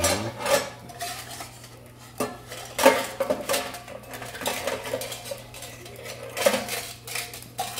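Stainless steel tableware clanking: scissors, a steel tray and a steel lid knocked together in a run of separate clanks, some of them ringing briefly. A steady low hum runs underneath.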